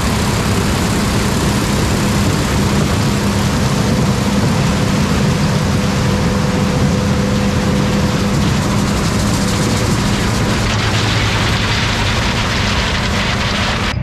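John Deere 9670 STS combine running as it harvests standing corn: a loud, steady engine hum under a constant rushing noise from the header and threshing machinery.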